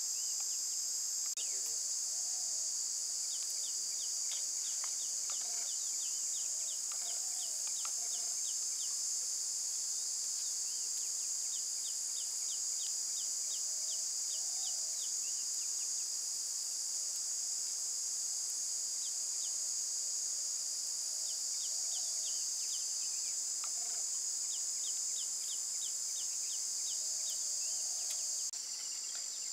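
Steady, high-pitched drone of a chorus of insects such as crickets or cicadas, with runs of short quick chirps over it now and then.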